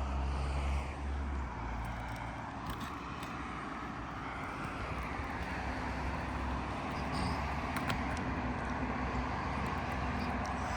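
Road traffic noise, a vehicle passing with a slow swell and fade, over a low steady hum, with a few faint clicks.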